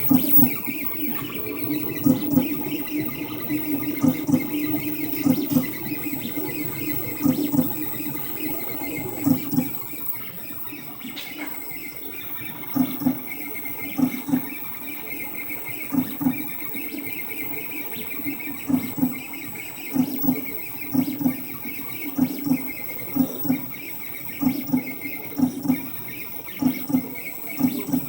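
3D printer's stepper motors whining through quick short moves of the print head. The moves come thick and overlapping for the first ten seconds or so, then as separate short buzzes about one to two a second.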